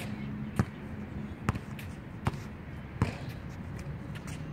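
Basketball dribbled on a painted outdoor hard court: four sharp bounces a little under a second apart.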